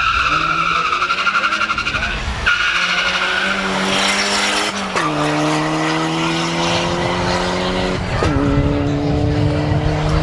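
A Seat Leon FR and a Volkswagen Golf GTI launching from a drag-race start at full throttle: a wavering tyre squeal for the first two and a half seconds, then the engines revving up through the gears, with an upshift drop about five seconds in and another about eight seconds in.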